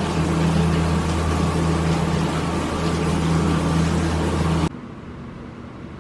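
Steady rain noise with a low, steady hum beneath it, cutting off abruptly about four and a half seconds in to a much quieter hiss.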